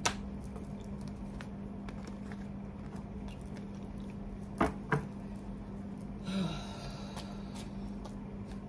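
Tarot cards being handled on a cloth-covered table: a few sharp taps as cards are set down and gathered, the two loudest close together about four and a half seconds in. A steady low hum runs underneath.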